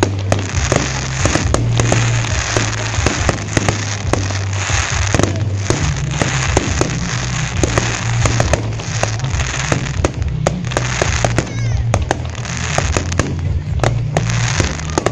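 Fireworks salute: shells bursting in dense, rapid bangs and crackles throughout, over loud music with a steady, shifting bass line.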